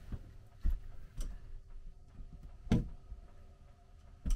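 Four sharp metallic clicks and knocks, the loudest a little past halfway, as the hinged metal arm of an RV TV mount is swung and moved on its freshly screwed-down bracket.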